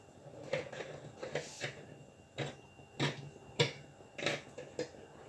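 A metal spoon scraping and knocking inside a jar as it scoops out the contents: a string of short, sharp clicks and scrapes at uneven intervals.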